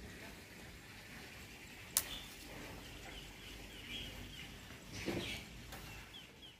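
Faint outdoor background with small birds chirping now and then. There is a single sharp click about two seconds in and a brief louder noise about five seconds in.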